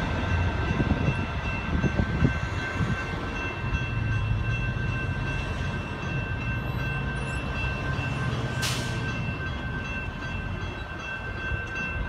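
Railroad crossing's General Signals Type 2 electronic bells ringing steadily while the gates are down and then rising after the light rail train has passed. The bells stop at the very end as the activation ends.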